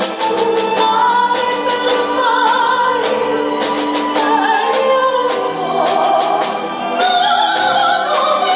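A woman singing in an operatic style with vibrato on long held notes, amplified through a microphone, over instrumental accompaniment.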